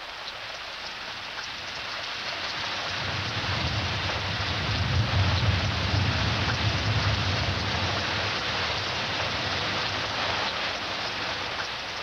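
Tropical rain pouring onto rainforest foliage, a steady hiss. A low rumble swells up a few seconds in and fades again near the end.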